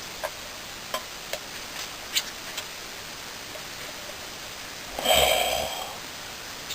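Handling noises: scattered light clicks and knocks over a steady hiss, then a louder scraping sound lasting under a second about five seconds in.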